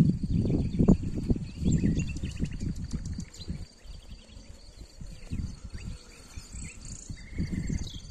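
Birds chirping and trilling faintly over a low rumbling noise, loudest in the first second or so and then fading.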